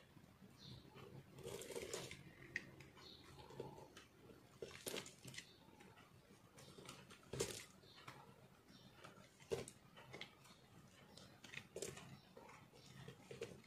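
A knife blade shaving and carving a lump of re-molded soap, giving soft, irregular crunchy scrapes as flakes break away, the strongest about five and seven and a half seconds in.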